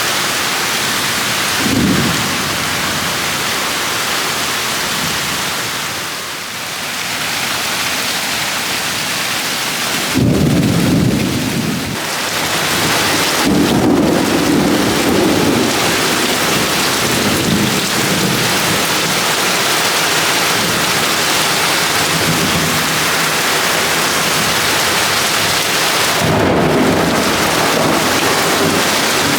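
Heavy rain pouring steadily, with rolls of thunder: a short rumble about two seconds in, the loudest clap about ten seconds in rumbling on for a couple of seconds, more rumbling a few seconds later, and another roll near the end.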